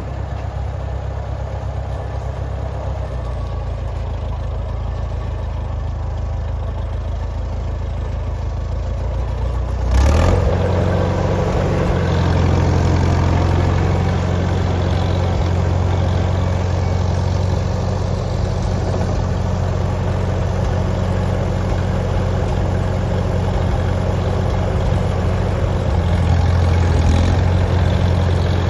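1950 Farmall M tractor's four-cylinder engine running steadily as the tractor is driven. About ten seconds in there is a sharp knock, after which the engine runs louder.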